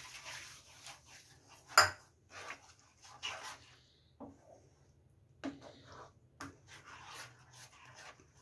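Wooden spatula stirring a thick chutney paste in a frying pan, scraping and rubbing on the pan, with a sharp knock about two seconds in and a few softer knocks later.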